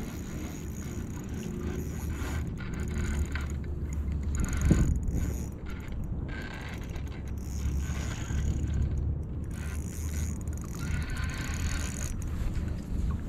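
Fishing reel being cranked while a hooked steelhead is played, its gears and ratchet clicking, over a steady low rumble. One sharp thump about a third of the way in.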